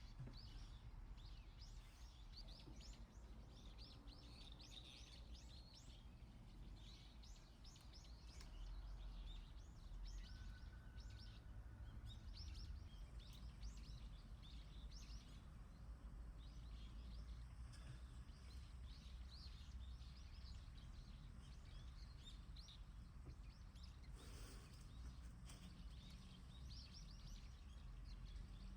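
Faint birds chirping in the background, many short high chirps in quick succession, over a low steady rumble.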